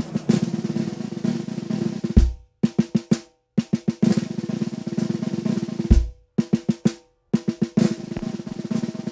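Drum music: fast snare-drum rolls, each ending on a heavy bass-drum hit about two seconds in and again about six seconds in. After each hit come a few separate strikes and brief silences before the roll starts again.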